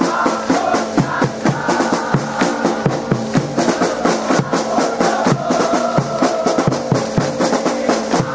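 Drum-led music, with drums beating a fast, steady rhythm over sustained tones.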